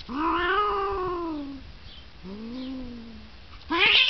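Cats yowling while mating: a long drawn-out yowl that rises and then slowly falls, a lower, quieter yowl about two seconds in, and a short, loud cry that rises sharply near the end.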